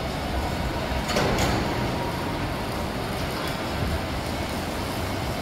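Steady factory-floor noise of machinery running in a large metalworking hall, with a brief clatter about a second in.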